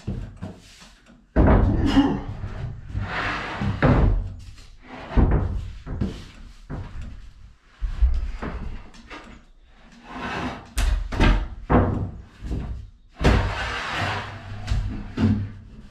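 Plywood boards knocking and thudding on a hollow plywood bed box in a run of irregular thumps, with longer scraping stretches as a board slides over the box and a person climbs onto it.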